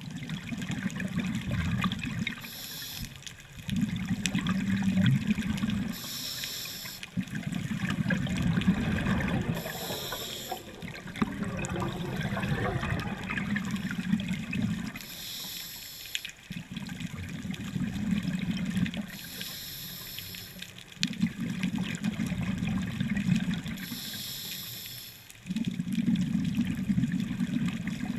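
Scuba diver breathing through a regulator underwater, in a slow, regular cycle about every four seconds. Each cycle is a short hiss of inhalation through the demand valve, followed by a longer low rumble of exhaled bubbles.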